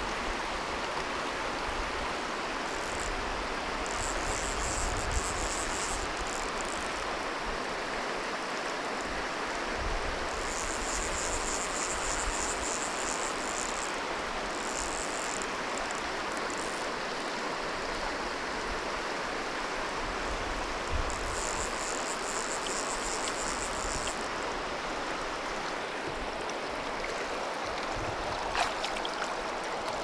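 Shallow rocky river running steadily over stones, an even rushing. High-pitched insect buzzing comes and goes over it in spells of a few seconds, four times.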